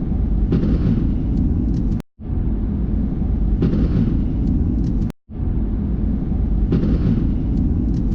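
Thunder from a close lightning strike, a heavy low rumble with a sharper crack about half a second in. It is heard three times over in short cuts with brief silences between them.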